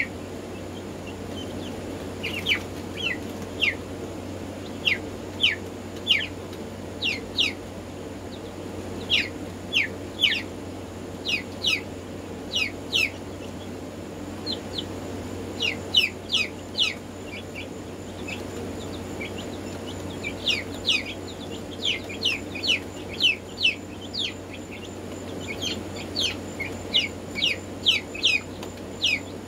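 Black Marans chicks peeping: short, high, falling peeps, often two to four in quick succession, over a steady low hum.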